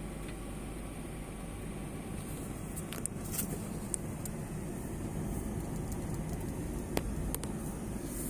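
Car engine and road noise heard inside the cabin, a steady low rumble as the car rolls slowly along a rough road, with a few sharp clicks, the sharpest about seven seconds in.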